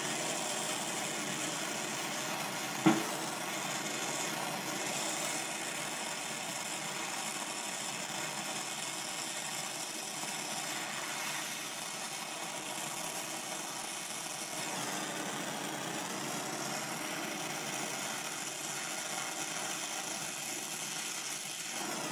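Oxy-acetylene torch flame burning steadily against a metal can, a constant hiss, with one sharp crack about three seconds in.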